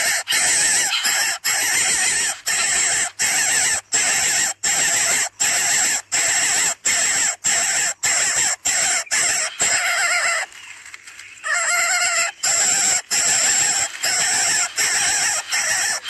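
Coucal nestlings begging: a harsh, rasping call kept up almost without a break, cut by brief gaps about every half second, with a quieter second about two-thirds of the way through.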